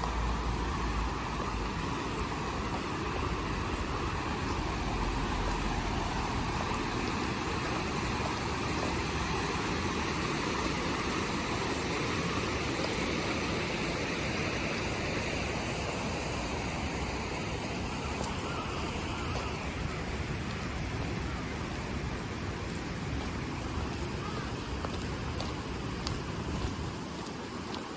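Steady rushing outdoor noise of the river's running water blended with road traffic, with a low rumble in the first few seconds.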